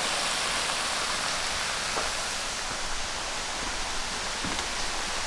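Small waterfall, where the dammed creek spills over a stone wall onto rocks, giving a steady rushing splash.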